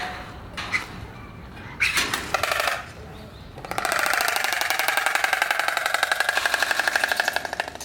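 Oriental stork bill-clattering: the two halves of the bill snapping together in a fast, even rattle of about eleven beats a second, lasting about four seconds from around the middle. A shorter burst of clacks comes about two seconds in.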